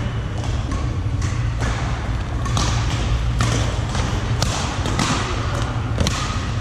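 Badminton rally in a large indoor hall: sharp racket strikes on the shuttlecock about once a second, mixed with hits from neighbouring courts, over a steady low hum.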